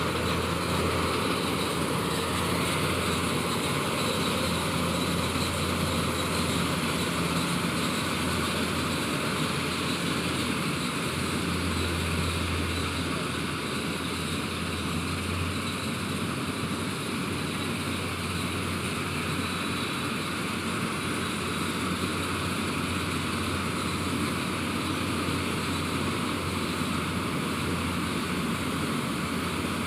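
Malkit combine harvester's engine running steadily, with a constant low hum under a broad machine noise.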